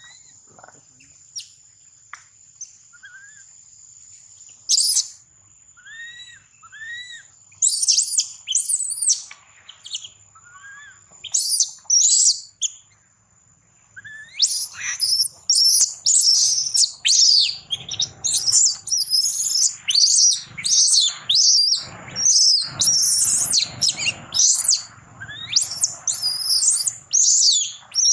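Baby macaque screaming: high-pitched shrieks, a few at first, then almost without pause through the second half.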